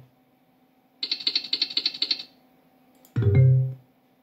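Video slot game sound effects during a spin: a run of rapid high ticks lasting about a second, then a short low tone near the end.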